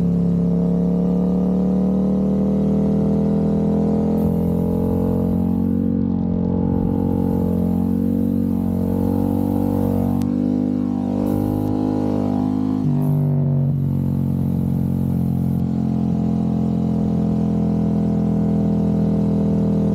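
A 2024 Yamaha R7's 689 cc parallel-twin engine running through an Akrapovič racing exhaust with the baffle removed, a steady ride-by note that wavers with the throttle midway and changes suddenly about two-thirds in.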